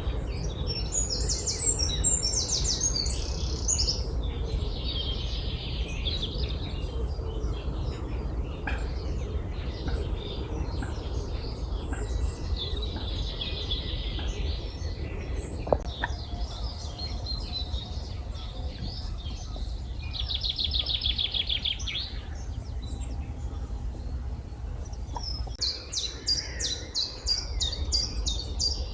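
Several songbirds singing in short, high phrases, one of them a fast trill about twenty seconds in, over a steady low rumble. A single sharp click sounds just before the sixteen-second mark.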